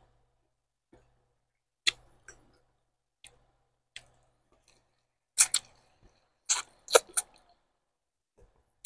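Close-miked eating sounds: sharp wet lip smacks and mouth clicks while chewing rice and fish eaten by hand and sucking on a fish bone. A few scattered smacks first, then a louder run of several smacks about five to seven seconds in.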